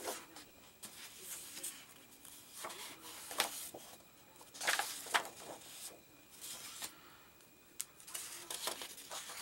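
Sheets of scrapbooking paper rustling and sliding against one another as they are lifted off a stack one by one, in several short, scattered bursts.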